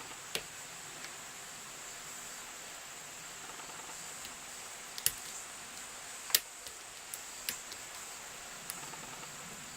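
Scattered small sharp clicks of a lock pick and tension wrench working the pins of an ERA six-pin euro cylinder lock. The lock is held in a deep false set, the sign of its security pins. The loudest click comes a little past halfway, over a steady faint hiss.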